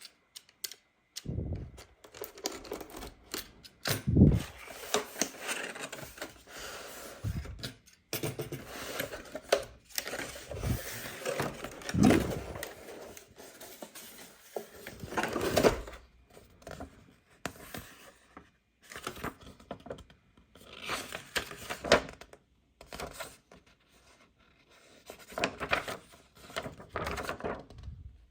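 Hands unpacking a toy from its packaging: irregular rustling, tearing and scraping with many sharp clicks and taps, stopping and starting.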